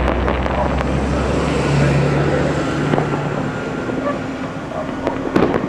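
Fireworks display: a continuous crackle over a deep rumble, with a few sharp bangs close together near the end.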